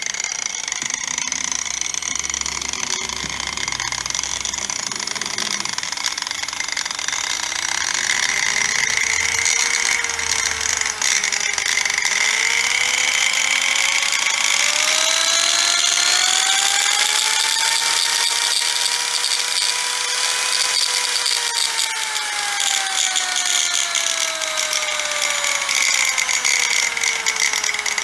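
Angle grinder, converted to a circular saw and fitted with a speed controller, running with no load. The motor whine rises in pitch as the controller's dial is turned up, holds at top speed for a moment about two-thirds of the way in, then falls steadily as the dial is turned back down.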